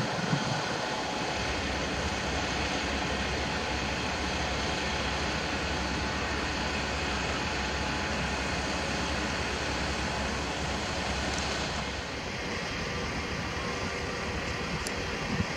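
Pacific National 81 class diesel-electric locomotives idling, their EMD 16-cylinder two-stroke engines giving a steady low hum. The sound eases slightly about twelve seconds in.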